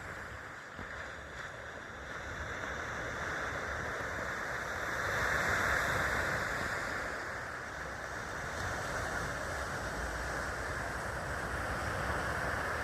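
Sea waves washing onto a beach, a steady rushing surf that swells to its loudest about halfway through and then eases back.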